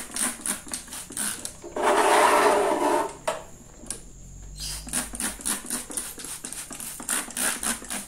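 Plastic trigger spray bottle squirted again and again in quick succession, short hissy squirts about four or five a second, misting detergent water onto a desk fan's grille. A louder burst of noise lasting about a second comes about two seconds in.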